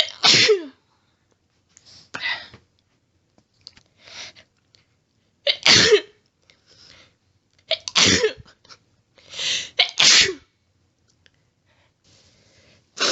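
A woman sneezing over and over in an allergy fit: about five loud sneezes a couple of seconds apart, each with a quick intake of breath before it, and a few small sniffs between.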